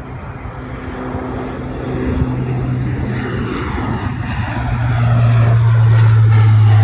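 Qantas Dash 8 twin turboprop airliner climbing out just after takeoff, its engine and propeller noise growing louder as it passes. A strong steady low hum comes in about two seconds in and swells near the end.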